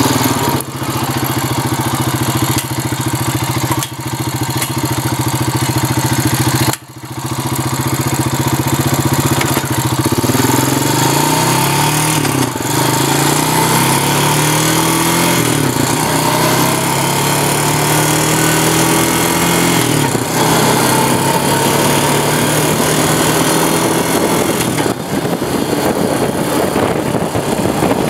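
Honda Rancher ES 350 ATV engine, a single-cylinder four-stroke, running under way on pavement. It drones steadily at first, then rises in pitch about three times in steps as it accelerates and shifts up through the gears, with wind rushing over the microphone.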